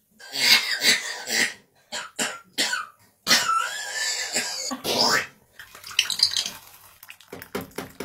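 African grey parrot making theatrical coughing and wheezing noises: a run of raspy, hissing calls with short gaps, one longer call in the middle. It is a mock 'dying' act while it waits for tea. Rhythmic music starts near the end.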